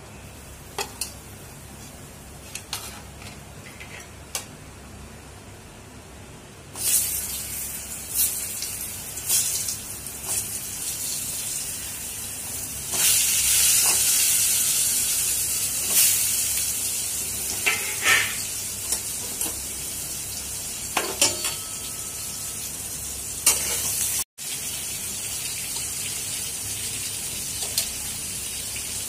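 Potato and raw papaya pieces frying in hot mustard oil in a metal kadai, a steady sizzle that starts suddenly about a quarter of the way in and grows louder around the middle. Scattered clicks and knocks of the pieces and spatula against the pan run through it.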